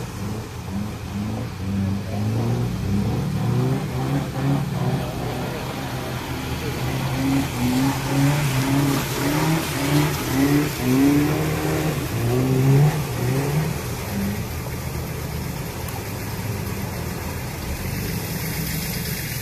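Suzuki Samurai 4x4 engine revving in repeated short surges as it wades through a deep muddy pond, with water churning around it, loudest about halfway through. After about fourteen seconds the engine settles to a steadier note as it climbs out.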